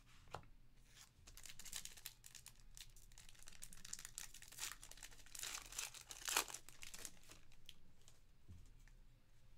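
Crinkling and tearing of a foil trading-card pack wrapper as a pack of football cards is opened, then the cards are handled.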